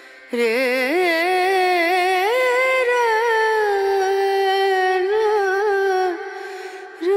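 Background music: a single voice singing long, slowly gliding held notes with a slight waver, with no beat. It breaks off for about a second near the end, then comes back.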